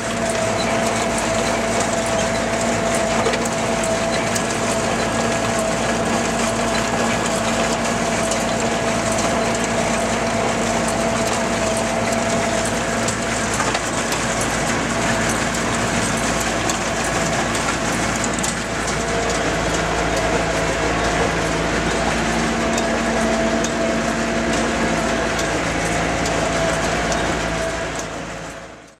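Bamford Super 59 small square baler working hay behind an Ursus 490 tractor: the tractor engine and baler mechanism run steadily together, with a constant gear whine over the clatter of the machinery. The sound stops abruptly at the end.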